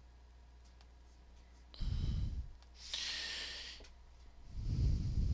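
A person breathing close to the microphone: two breaths that puff low on the mic, with a hissy breath in between, over a faint steady hum.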